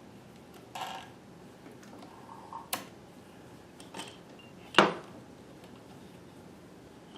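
A few separate small metallic clicks and clacks from handling a Bernina 610 sewing machine while threading it, the loudest a sharp clack about five seconds in.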